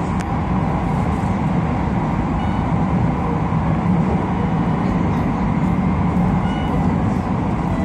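Keio Line electric train running at speed through a tunnel, heard from just behind the driver's cab: steady running noise of wheels on rails.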